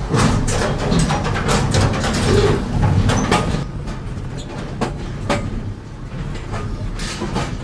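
A car rolling slowly along the steel decks of a car-carrying shuttle train's open wagons, heard from inside the car: a low rumble with irregular metal clanks and knocks from the deck plates.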